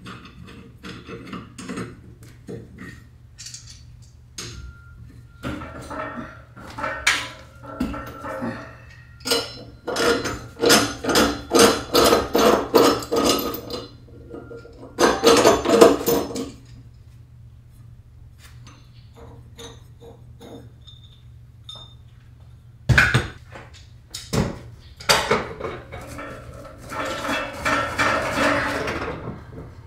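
Fiberglass insulation blanket being handled and pulled off a water heater tank: irregular bursts of rustling and crackling, with two sharp knocks a little after the middle.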